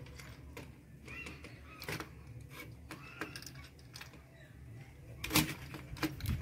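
Irregular light clicks and rustles of stranded copper wire being twisted into a joint by hand against a plastic switchboard, with a louder cluster of clicks about five seconds in.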